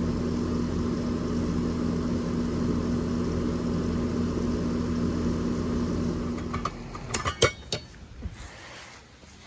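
Residential central air-conditioning condensing unit, compressor and condenser fan, running with a steady hum, on an R-22 system about half short of refrigerant charge. About six and a half seconds in it stops, followed by a few sharp clicks.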